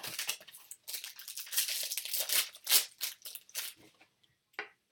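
Trading card pack wrappers crinkling and tearing as packs are opened: a quick run of scratchy rustles for about four seconds, then it goes nearly quiet with a few faint ticks.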